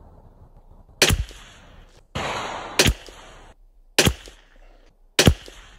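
Four .22 rimfire rifle shots from a Sako P94S bolt-action rifle, sharp cracks about a second apart. A second-long rush of hissing noise surrounds the second shot.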